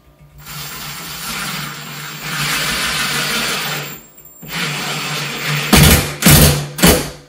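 Ryobi cordless drill-driver driving a screw into a closet shelf bracket. It runs steadily for about three and a half seconds, pauses briefly, runs again, then gives three short, loud bursts near the end as the screw is driven home.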